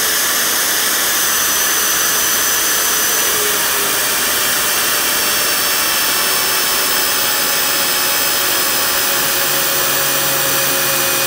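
Magnetic drill running under load as an annular cutter bores through a steel frame, a loud, steady whir with faint whining tones in it.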